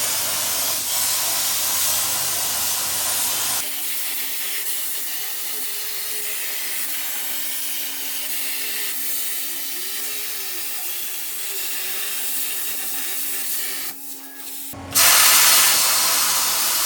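Plasma CNC torch cutting steel: a loud, steady hiss of the arc and air. It changes abruptly twice, and the middle stretch has a steady hum with a pitch that rises and falls.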